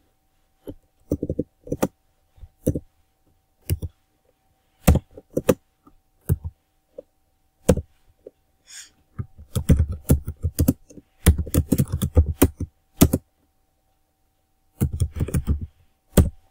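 Computer keyboard being typed on: separate keystrokes at first, then dense runs of fast typing in the second half, over a faint steady hum.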